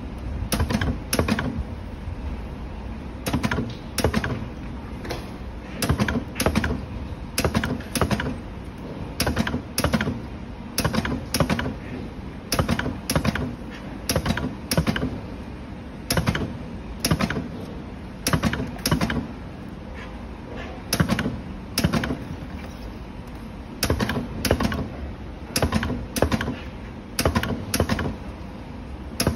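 Automatic battery spot welder working along a row of 18650 cells. Its twin electrode head presses down on the metal connecting strip with sharp clicks, often in quick pairs, repeating about every second over a steady machine hum.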